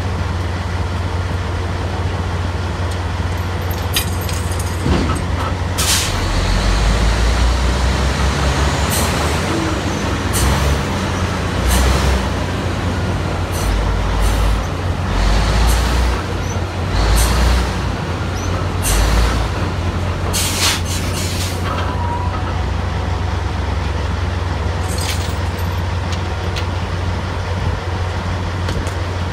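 Drilling rig machinery running steadily with a low engine drone. The low rumble swells in repeated surges from about six to twenty seconds in as the rig takes load, and about a dozen short, sharp metallic and air-release noises from the floor equipment are scattered through it.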